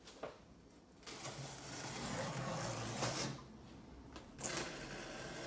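X-Acto craft knife slicing through packing tape and cardboard on a shipping box, a rasping scrape in two long strokes, the second starting about four and a half seconds in.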